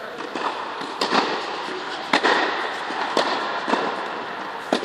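Tennis ball being hit by rackets and bouncing on a hard court, a string of sharp, irregular pops, with echo from the enclosed hall, over a steady background hiss.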